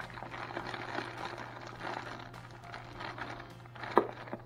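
Small plastic parts bags rustling and crinkling as they are handled, with a sharp click about four seconds in, over a low steady hum.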